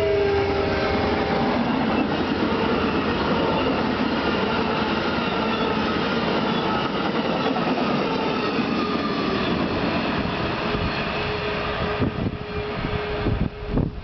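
Amtrak passenger train of Superliner cars passing close by: a steady, dense rail rumble with wheels clicking over the track. The tail of the locomotive's weak horn note drops in pitch and fades in the first second. Near the end the passing noise turns gusty and choppy.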